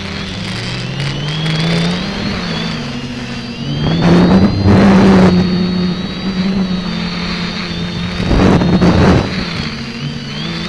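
X550AIOP quadcopter's electric motors and propellers droning, the pitch rising and falling as the throttle changes, with a steady high whine above. Wind buffets the microphone in two loud gusts, about four and eight seconds in.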